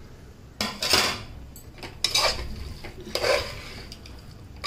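Steel ladle scraping and clattering against the inside of an aluminium pressure cooker while stirring meat and vegetables: three loud strokes about a second apart, and a fourth at the end.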